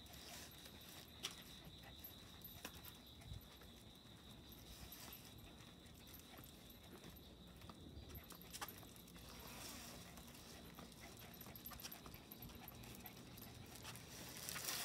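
Faint close sounds of two small dogs meeting on a walk: soft panting and sniffing, with a few light clicks.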